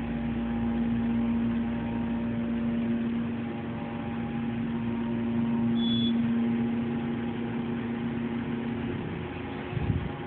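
KONE hydraulic elevator rising, a steady hum from the hydraulic pump with the cab's loud fan. A brief high beep comes about six seconds in. The hum fades near the end and a short thump follows as the car stops.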